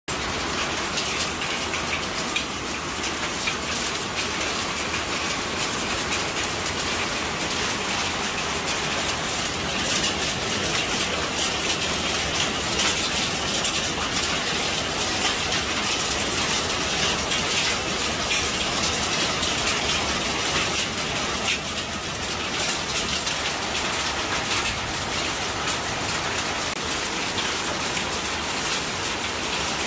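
Hailstorm: hailstones and rain pelting down steadily on a paved courtyard, a dense patter of countless small impacts.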